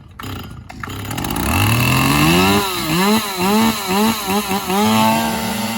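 Two-stroke chainsaw engine being warmed up. It speeds up from low about a second and a half in, then is revved in quick throttle blips, two or three a second, and settles into a steady high run near the end.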